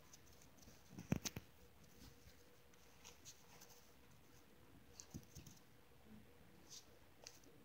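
Near silence, broken by a few faint taps and clicks. The clearest is a quick cluster about a second in, and lighter ticks follow every second or two.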